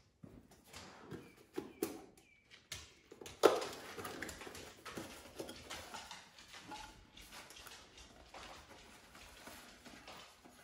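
Small cardboard box being opened and handled: scattered rustles, taps and clicks, the loudest a sharp snap about three and a half seconds in, followed by a few seconds of denser rustling.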